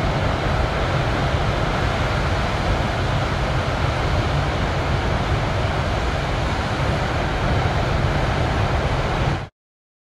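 Steady rush of large breaking ocean waves with wind noise on the microphone, cutting off suddenly near the end.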